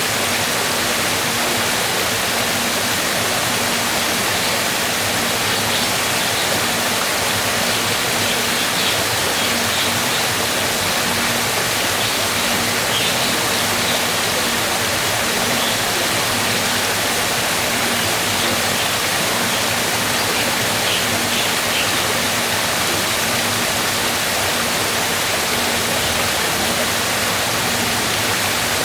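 Waterfall: a steady, unbroken rush of falling water, with faint high chirps now and then in the middle.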